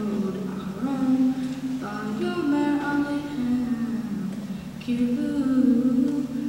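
A girl's unaccompanied solo voice chanting a Hebrew Torah reading in traditional cantillation. She holds notes that step up and down, with short breaks between phrases.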